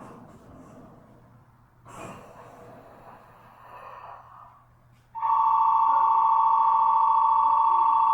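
Quiet station ambience with a brief knock about two seconds in, then a loud, steady electric ringing starts suddenly about five seconds in and holds without a break: a platform departure bell signalling that the train is about to leave.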